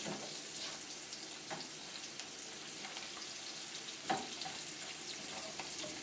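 Sun-dried tomatoes, shallots and garlic sizzling quietly in olive oil in a skillet while being stirred with a spatula. There are a couple of light taps of the spatula against the pan, about a second and a half and four seconds in.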